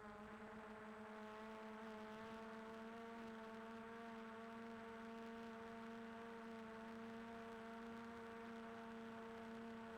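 Quadcopter drone's propellers humming faintly at a steady pitch, rising slightly at the start and then holding.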